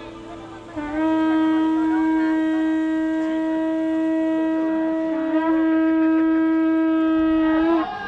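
A conch shell trumpet blown in a long, steady held note. It is quieter at first, swells loud about a second in, breaks briefly about five seconds in, and stops just before the end.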